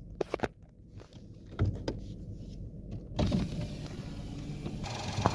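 Clicks and a thump of a car door being opened from inside, then the idling engine and passing traffic outside come through louder and fuller as the door opens.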